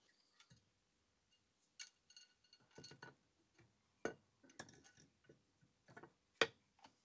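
Faint metallic clicks and knocks of the twin camshafts and their chain being handled and set into a VW 16-valve cylinder head, one clink ringing briefly about two seconds in and the sharpest knock near the end.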